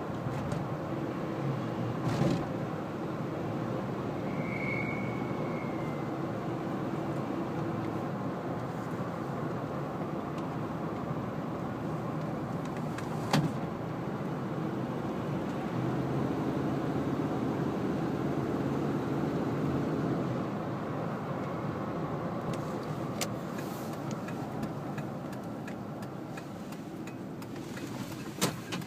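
1998 Ford Expedition's 4.6-litre V8 running with a steady hum and faint droning tones: the odd harmonic noise that the owner thinks might come from a newly installed belt tensioner. A few sharp clicks break in, and there is a brief high chirp about five seconds in.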